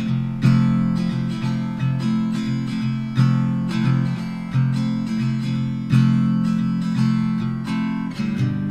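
Background music: an acoustic guitar strumming chords in a steady rhythm, a new strum roughly every half to three-quarters of a second.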